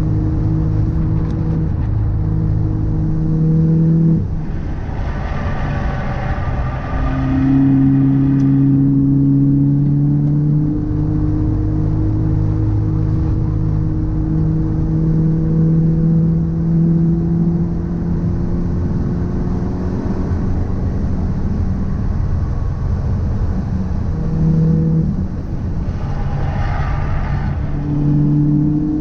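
Car driving with its engine note steady: the pitch drops suddenly about four seconds in, rises again a few seconds later and slowly sinks, then changes again near the end, over a constant low road rumble. The owner suspects an abnormal noise from a drive shaft or a wheel hub.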